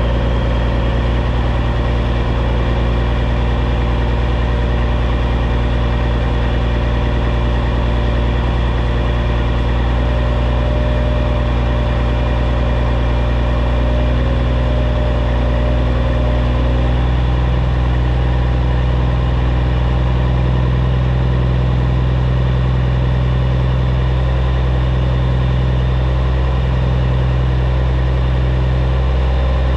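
The CAT C15 inline-six diesel of a 2006 Peterbilt 379 semi truck running steadily at low revs.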